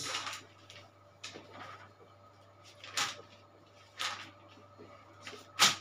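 Dry-erase marker writing on a whiteboard: about six short, scratchy strokes at irregular intervals, the one near the end the loudest.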